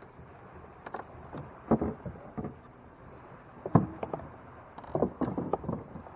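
Knocks and clunks of gear being handled on a fishing kayak, coming in three clusters of sharp hits.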